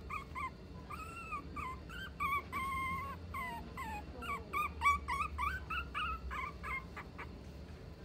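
A puppy whimpering: a quick run of short, high-pitched whines that bend up and down, one after another, stopping about seven seconds in.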